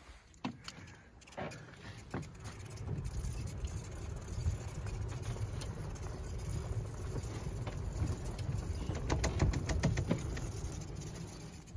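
Footsteps on a grassy, sandy track under a low, gusting rumble of wind on the microphone. The rumble builds about two to three seconds in and eases near the end.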